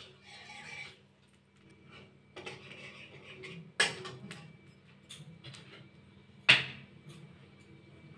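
Flat metal spatula scraping and stirring in a steel kadai of hot oil, with two sharp metal clanks of the spatula against the pan a few seconds apart, the second the louder.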